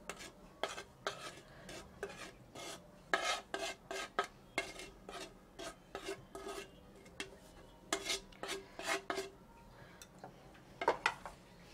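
Coarsely ground spice mix scraped off a ceramic plate into a glass bowl of slit green chillies, in a series of short scraping strokes that come in busier runs about three and eight seconds in.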